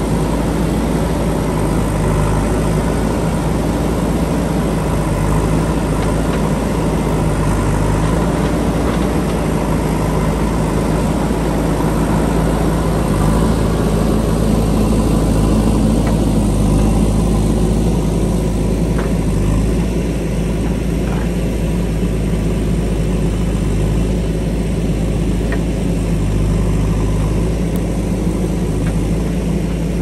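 JCB 3DX backhoe loader's diesel engine running steadily while the backhoe arm digs into the hillside soil.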